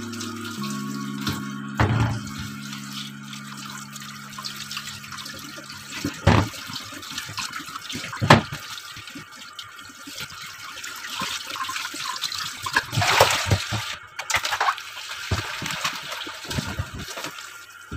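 Running tap water splashing over hands and button mushrooms in a stainless steel sink. Several sharp knocks come as the washed mushrooms are put into a plastic bowl.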